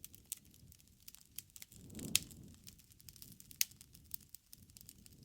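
Wood fire burning, crackling with irregular sharp pops over a low rumble of flames; the low sound swells and the loudest pop comes about two seconds in, with another strong pop a little past three and a half seconds.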